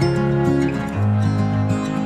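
Background music: gently strummed acoustic guitar.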